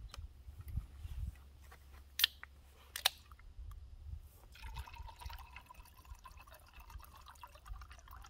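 Two sharp clicks, then liquid being poured faintly into a container.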